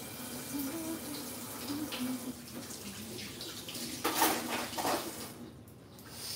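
Water running from a kitchen tap, heavier for a moment about four seconds in, then shut off about five seconds in.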